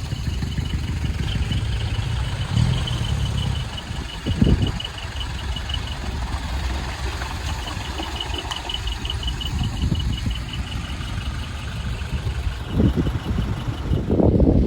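Large truck's diesel engine running at low revs, with a fast, high-pitched pulsing beep from the truck that sounds for a few seconds, stops briefly, then starts again.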